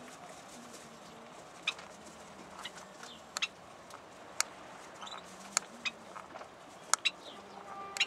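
Caged cockatiels making about a dozen scattered, short, sharp clicks and a few brief high chirps over a quiet steady background.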